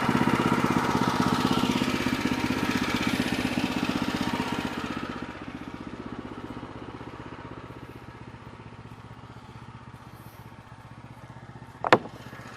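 Woodland Mills HM122 sawmill's small gasoline engine running steadily between cuts, falling noticeably quieter about five seconds in. A single sharp clack near the end.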